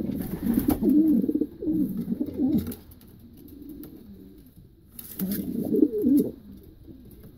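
Racing pigeons cooing at the nest bowl, in low, wavering calls. There are two bouts, with a quiet lull of about two seconds between them before the cooing resumes about five seconds in.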